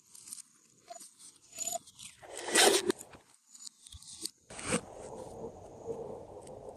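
Glossy slime being worked by hand, with crackling, sticky pops and scraping, loudest about two and a half seconds in; a steadier, lower squishing rustle follows near the end.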